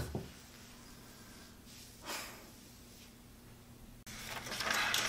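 A young woman's heavy exhale, a short sigh, about two seconds in. Near the end, paper rustling as a letter is handled.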